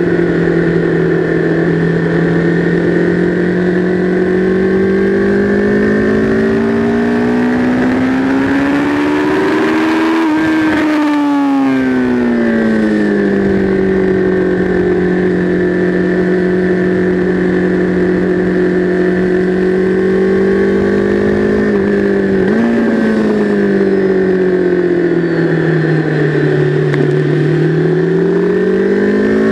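Sport motorcycle engine heard onboard at track speed, with wind rushing past. The revs climb steadily for about ten seconds, then fall away and hold steady. About two-thirds through, a quick blip on a downshift comes before the revs sink low, and they climb again near the end as the bike accelerates.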